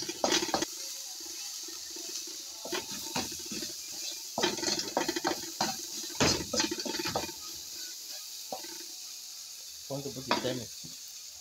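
A wooden spatula stirring and scraping diced carrots, spring onions and onions around a pan, in short bursts of scraping strokes over a steady light sizzle of frying vegetables.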